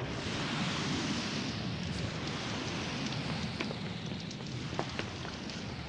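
A large fire burning after an explosion: a steady rushing hiss with a few sharp crackles, slowly dying down.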